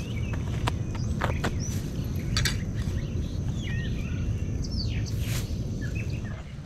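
Songbirds chirping and calling several times over a steady low outdoor rumble, with a few short clicks.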